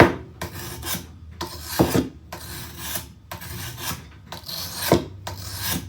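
Fine sharpening stone rubbed in repeated strokes along the steel blade of a pair of loppers, about two strokes a second, honing the edge after filing.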